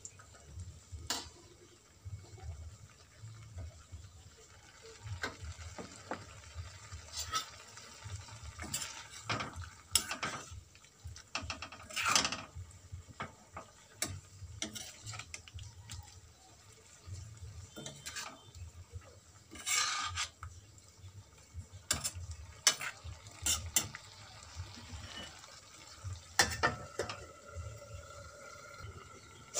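Cooking at an aluminium pan: a utensil stirring wet leafy greens, with scattered scrapes and knocks against the pan, water poured in at the start, and a metal lid set down over the pan near the end.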